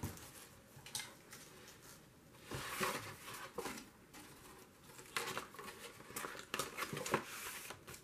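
Sheets of paper and stiff paper strips rustling as they are lifted and handled, in a few short bursts, the busiest about three seconds in.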